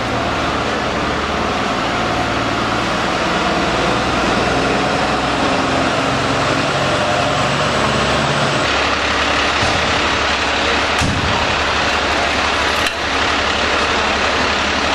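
Fire engine's diesel engine idling steadily, with two short knocks in the second half.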